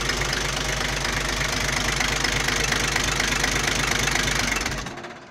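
Toyota 2H 4.0-litre straight-six diesel engine, freshly fitted, idling steadily. The sound falls away about five seconds in.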